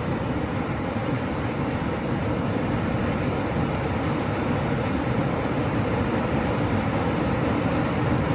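Steady rushing roar of a nearby waterfall, an even noise that holds without change.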